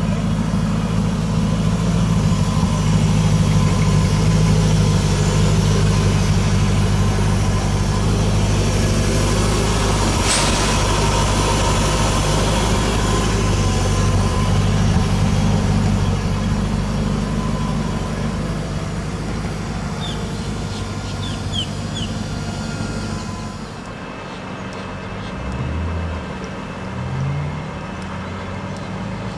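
Koenigsegg CCX's 4.7-litre V8 idling steadily, with a single sharp click about ten seconds in. Near the end the sound drops and the engine note rises briefly twice.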